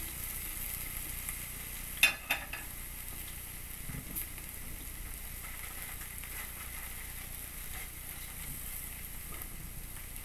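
Steaks sizzling on a hot ridged cast iron grill pan, a steady frying hiss. About two seconds in come two sharp metal clacks close together, from the metal tongs.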